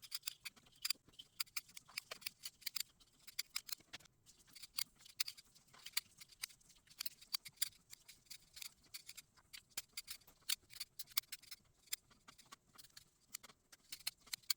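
Light, irregular clicking and tapping of beads and a tatting shuttle being handled while the beaded thread is wound, several small clicks a second.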